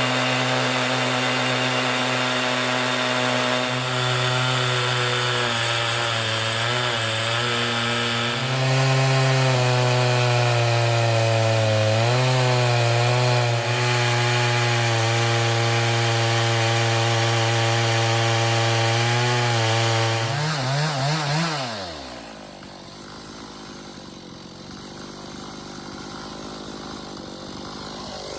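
A chainsaw mounted in a chainsaw mill running at full throttle while ripping a long pine log lengthwise into a 2-inch board, its pitch sagging slightly at times under load. About 21 seconds in the engine is let off and winds down in a quickly falling pitch, leaving a much quieter background.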